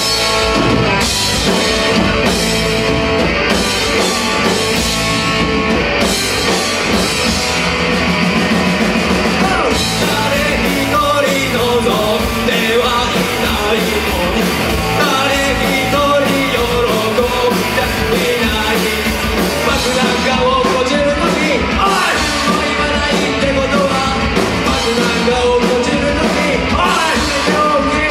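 Live punk rock band playing loudly, with electric guitar, electric bass and drum kit under a male lead singer.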